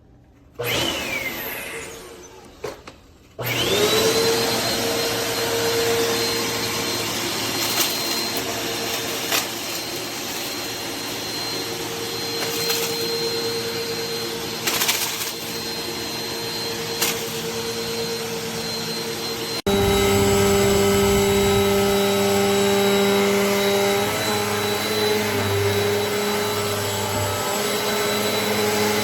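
Eureka NEU10AE4 AirSpeed bagless upright vacuum switched on a few seconds in: its motor whine rises quickly to a steady pitch and runs on. A few sharp clicks come as broken cracker pieces are picked up. About twenty seconds in, the motor note shifts abruptly.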